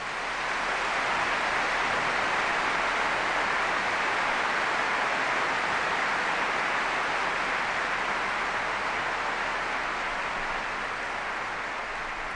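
Large audience applauding, building up within the first second and slowly dying down near the end.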